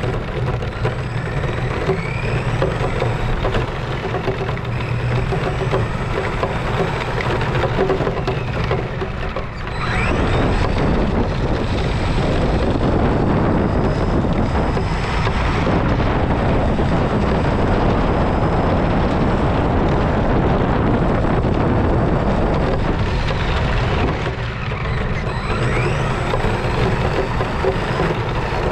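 Radio-controlled car running fast on asphalt: a small electric motor whines up and down in pitch over a heavy rush of tyre and wind noise. About ten seconds in the rush grows louder and steadier, then eases again near the end, when the rising and falling whine returns.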